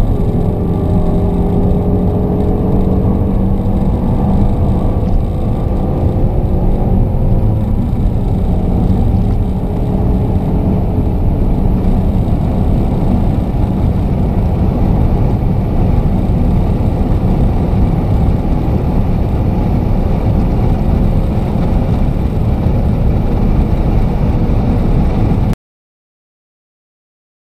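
Hot hatch's turbocharged four-cylinder engine pulling hard in top gear at high speed, heard from inside the cabin with heavy road and wind noise; its pitch climbs slowly for the first several seconds, then holds steady near top speed. The sound cuts off suddenly about two seconds before the end.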